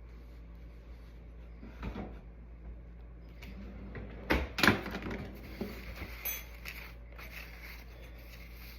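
A few short knocks and clatters of kitchen items being handled, like containers being picked up and set down or a cupboard being opened and closed, the loudest about four and a half seconds in, over a steady low hum.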